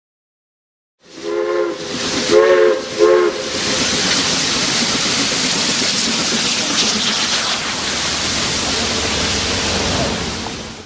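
Steam locomotive, Great Smoky Mountains Railroad 1702 (a USATC S160 2-8-0), sounding three short blasts on its multi-note whistle, then a loud steady hiss of escaping steam that cuts off suddenly near the end.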